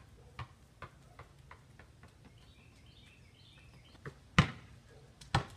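A basketball bouncing on a concrete driveway, the bounces coming quicker and fainter as it settles, then two loud thumps of the ball about a second apart near the end. Birds chirp faintly in between.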